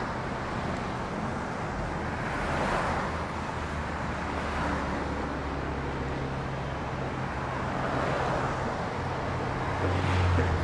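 Steady traffic noise: engines running and tyres on the road, with a low engine hum underneath and the sound swelling as vehicles pass, about three seconds in and again near the end.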